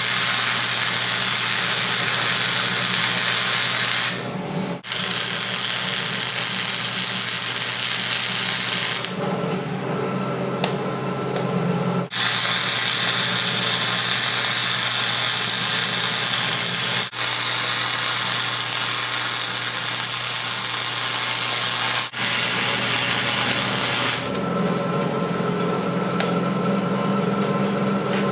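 Wire-feed (MIG) welder's arc crackling steadily as beads are laid on steel plate, in several runs broken by brief pauses about 4, 12, 17 and 22 seconds in. The arc stops a few seconds before the end, leaving a steady low hum.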